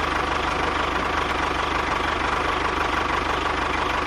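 Engine idling with a fast, even chugging.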